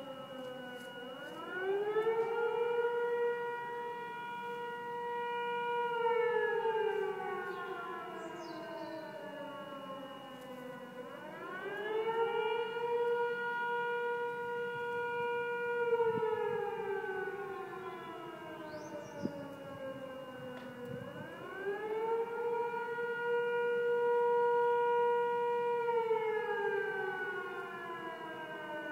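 Air raid siren wailing in long cycles, three times over: a quick rise to a held high pitch for about four seconds, then a slow fall. It is sounding as a warning of a chemical plant fire.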